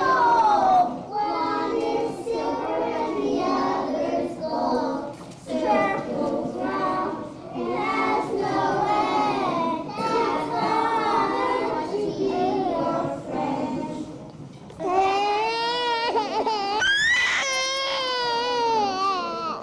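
A group of young children singing together in unison. Near the end one high voice stands out close to the microphone, wavering and sliding up in pitch.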